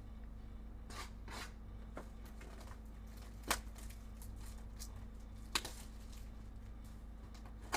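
Trading cards and pack wrappers being handled: soft rustles and slides of card stock, with three sharp clicks spaced about two seconds apart from the middle on.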